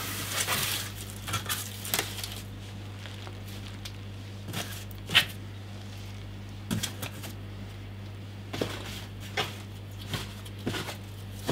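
Bubble wrap and cardboard packing being handled: a busier rustle in the first second, then scattered crackles and light taps every second or so, over a steady low hum.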